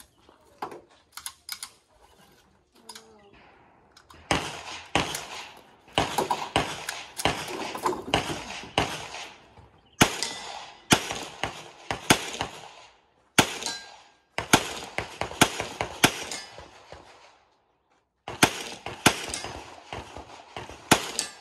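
Pistol shots fired in rapid strings during an IPSC handgun stage, several shots a second, with short pauses between the strings.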